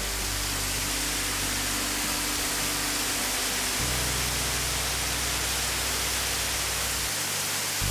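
Waterfall rushing steadily over rock, with background music of sustained low chords that change about four seconds in.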